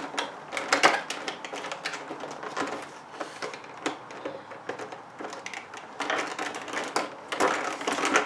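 Cardboard advent-calendar door being pried open by hand and the small cosmetic inside taken out: irregular clicking, tapping and crinkling of cardboard and packaging, louder near the end.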